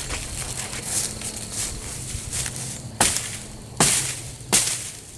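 Wire mesh fencing being yanked off wooden posts through dry leaves and dead grass: light rustling, then three sudden loud rips in the second half, under a second apart.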